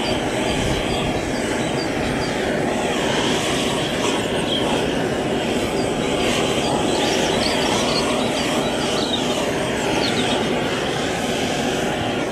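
Propane gas blowtorch burning steadily with an even rushing noise, its flame played over a bitumen wrap on a wooden fence post to melt it onto the timber.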